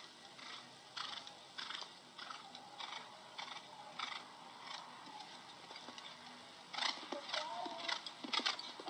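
Horse cantering in an arena, a steady beat from its strides about every half second. Near the end, louder sounds with a wavering voice-like tone come in over it.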